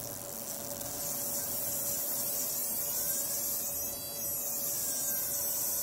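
Automotive fuel injector's solenoid being pulsed open and shut by a square-wave signal at 12 V, giving a steady electrical buzz.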